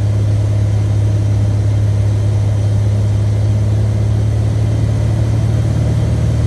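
Cockpit sound of a Reims FR172E Rocket's Continental IO-360 engine and propeller running at a steady pitch, a constant low drone.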